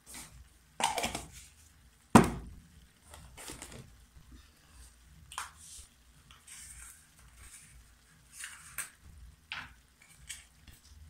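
Scattered knocks and light clatter at irregular intervals, with one sharp, louder thump about two seconds in.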